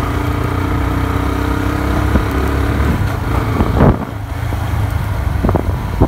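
Motorcycle engine running steadily while riding along a street, with road noise; the engine note falls away about four seconds in.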